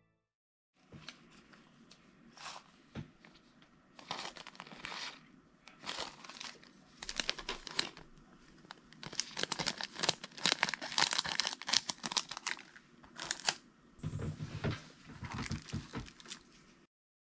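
Thin clear plastic crinkling and rustling as it is handled: the protective film over a diamond-painting canvas and a small plastic bag of drills. It comes in irregular crackly bursts, starting about a second in, loudest in the middle and stopping shortly before the end.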